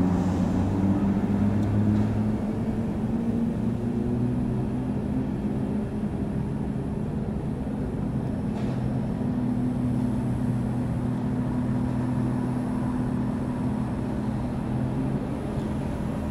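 Steady hum of a running vehicle engine with road noise, its low tones shifting slightly in pitch.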